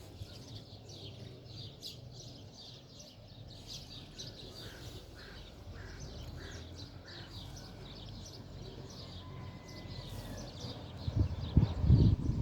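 Many small birds chirping continuously in short high notes over a low background rumble; about a second before the end, several loud low thumps come in.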